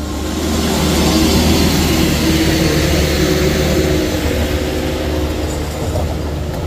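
A heavy vehicle's engine running loud, with a low hum and a broad noise over it. It swells about a second in and then holds steady.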